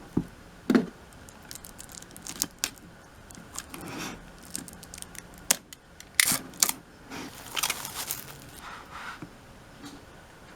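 Rustling, tapping and scattered clicks of an album's packaging being handled and opened, with a spell of louder rustling in the middle.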